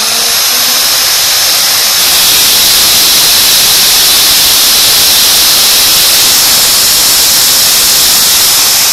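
Black & Decker KR704RE 710-watt corded hammer drill running free at full trigger: a loud, steady high motor whine and a rush of air from its cooling fan, growing a little louder about two seconds in.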